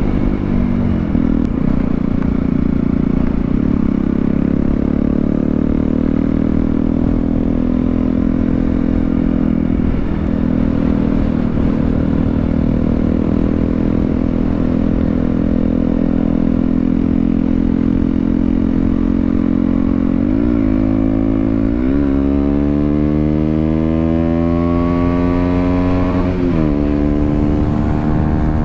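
KTM Duke 125's single-cylinder four-stroke engine on the move, holding steady revs, then shifting gear about two-thirds of the way in and accelerating with rising pitch, with another shift near the end.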